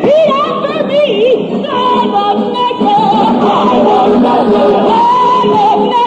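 Show-tune singing with a theatre orchestra, from a live stage recording. A woman's voice makes quick wavering, yodel-like turns for the first second or so, then holds long high notes over the band.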